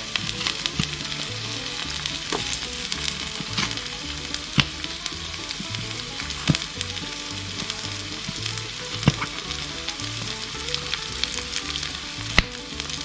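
Onions and minced garlic sautéing in butter in a pan: a steady sizzle, with the clicks of a utensil stirring against the pan about once a second.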